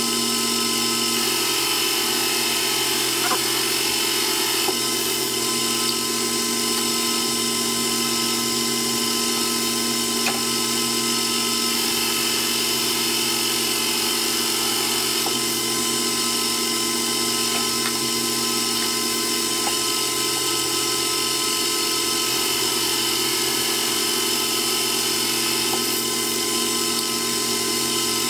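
Myford Super 7 metal lathe running steadily as a carbide-insert tool turns a metal part, a constant whine of motor and gears with a few faint ticks of swarf.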